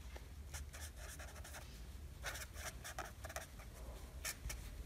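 Felt-tip pen scratching on paper in short, irregular strokes as words are written. It is faint, with a steady low hum underneath.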